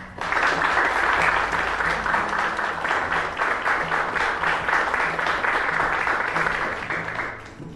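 Audience applauding: a dense crowd of hand claps that starts suddenly and dies away near the end.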